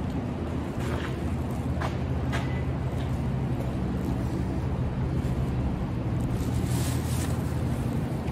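Steady low rumble of an underground parking garage, with a few faint clicks in the first three seconds and a short hiss about seven seconds in.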